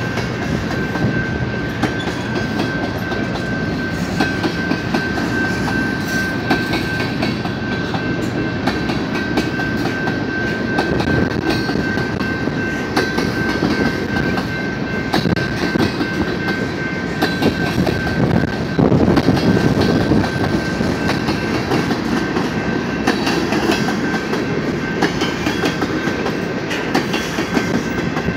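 BNSF freight train of covered hopper cars rolling past, a continuous rumble and clatter of wheels on rails. A thin steady high tone runs through it, and it swells louder about two-thirds of the way in.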